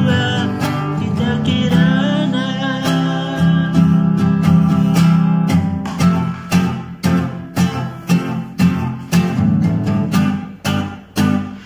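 A man sings to his own acoustic guitar. His voice stops about three seconds in, and the guitar strums on alone in even strokes, about two a second.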